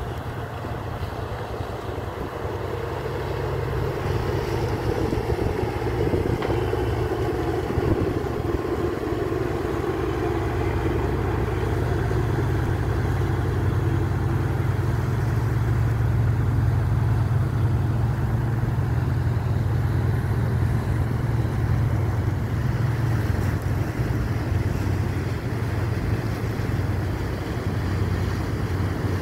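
Large high-speed catamaran ferry's engines running with a steady low drone as it moves past close by. The sound grows louder a few seconds in and holds.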